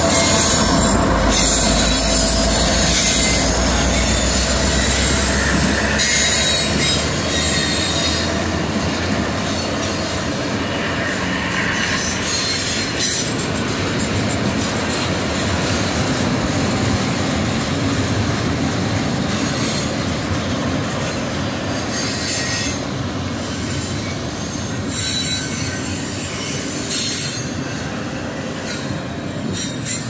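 A Norfolk Southern GE AC44C6M diesel locomotive passing close by, its low engine rumble dropping away after about six seconds. A train of double-stack intermodal well cars follows, its steel wheels rolling steadily on the rails with high-pitched wheel noise that comes and goes.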